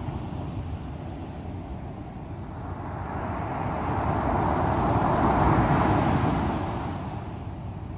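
Sea waves washing on the shore: a steady low surf rumble, with one wave swelling up and breaking, loudest about five to six seconds in, then fading back.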